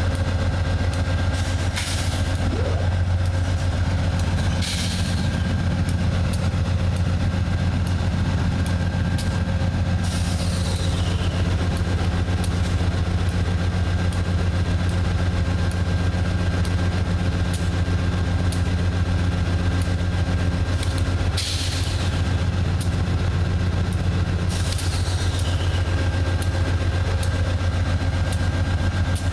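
GE P32-8 diesel locomotive's 16-cylinder 7FDL engine idling steadily while standing: a strong low drone with a faint steady whine above it. A few short bursts of hiss come and go over the drone.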